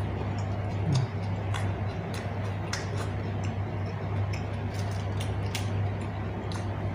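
Close-miked eating sounds: irregular crisp clicks from chewing and lip smacking, several a second, over a steady low hum.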